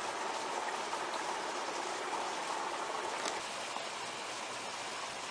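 Steady rush of water from a garden hose running into a water-filled AquaDam storage tube as it fills, with one faint tick about three seconds in.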